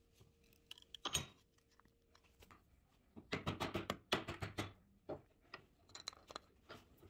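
Hammer striking a plywood piece held in a steel bench vise: one knock about a second in, then a quick run of about eight faint blows near the middle, followed by a few scattered light knocks.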